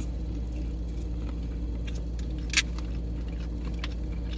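Air conditioning running with a steady low hum, with a few small clicks and one sharp crackle about two and a half seconds in from eating and handling the crab boil.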